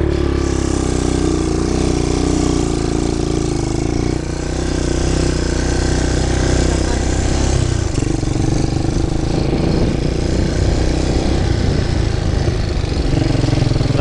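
ATV (four-wheeler) engine running while it is ridden along a rough dirt trail, its note shifting about four seconds in and again near eight seconds.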